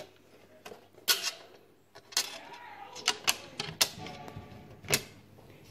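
Irregular sharp clicks and knocks of the metal side rail and spring parts of a Neff Slide and Hide oven door being handled and fitted by hand, with the loudest about a second in, two seconds in and near the end.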